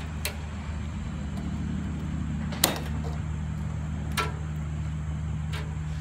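A few short sharp clicks as the push-on wire connectors are pulled off a microwave oven magnetron's terminals, the loudest about two and a half seconds in, over a steady low drone.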